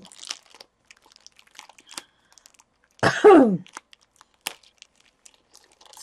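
Thin plastic wrapping crinkling and crackling faintly as hands work it open. About three seconds in comes a loud short vocal exclamation from the person, falling in pitch; a sharp tick follows about a second and a half later.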